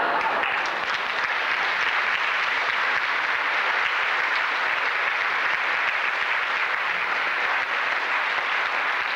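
Audience applauding with steady, dense clapping, picked up by an early-1990s camcorder microphone.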